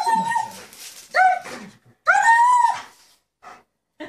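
Dog whining in excited greeting: three high-pitched cries, the third the longest.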